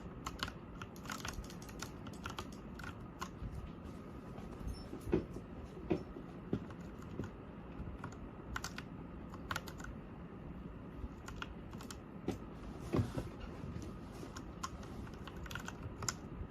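Typing on a Royal Kludge RK61 mechanical keyboard: irregular keystroke clicks, a few per second, with short pauses between bursts of typing.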